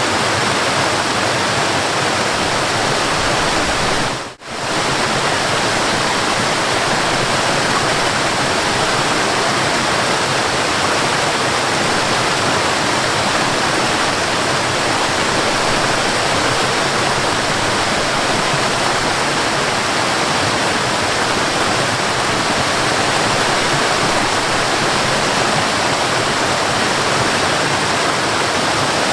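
Waterfall in a forest, a steady, dense rush of falling water. It cuts out for a split second about four seconds in, then carries on unchanged.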